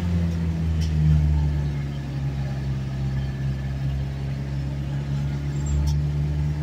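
A car's engine and road noise heard from inside the cabin while driving, a steady low hum.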